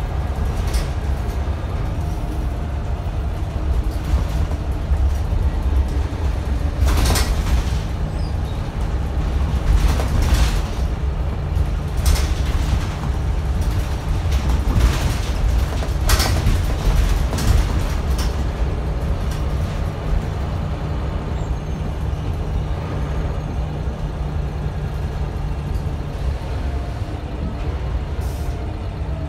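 Scania L94UB city bus heard from inside the passenger cabin as it drives, its rear-mounted 9-litre five-cylinder diesel making a steady low drone. Several short sharp noises come through around the middle.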